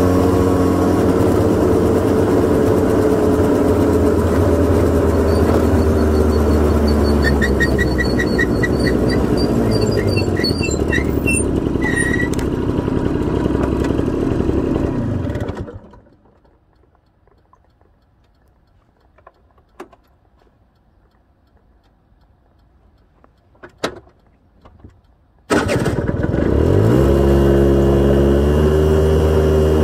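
Honda Gyro X (TD01) 50cc two-stroke single-cylinder scooter engine idling steadily. About halfway through it is switched off and dies with a falling pitch. After about ten seconds of quiet with a few faint clicks, it is started again, catching at once, its pitch rising quickly and then settling back into a steady idle.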